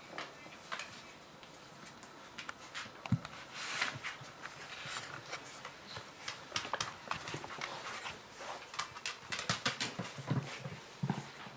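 Border Terrier and puppy scampering and play-wrestling on a tiled floor: many quick clicks of claws on the tiles with scuffling, busier in the second half, with a few low thuds near the end.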